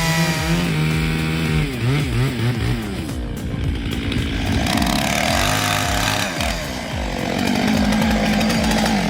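Stihl MS 661 two-stroke chainsaw cutting into a large tree trunk, its engine pitch rising and falling under load in the cut. Background music with a steady beat plays underneath.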